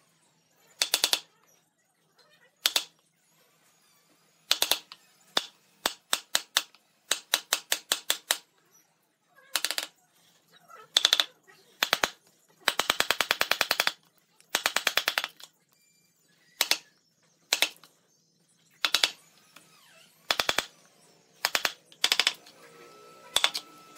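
Wooden mallet striking the handle of a wide wood chisel, cutting a hinge mortise in a pine board. The blows come as single sharp knocks and in bursts of fast, light taps, with the loudest and quickest runs about halfway through.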